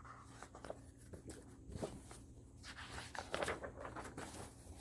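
Faint rustling and scraping of a picture book being handled, with a few small clicks; it grows a little busier past the middle.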